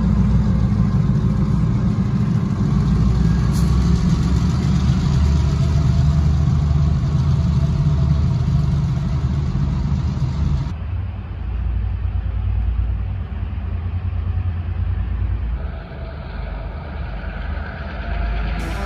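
Diesel locomotive engines running with a steady low rumble. About eleven seconds in it changes abruptly to a quieter, more distant locomotive rumble.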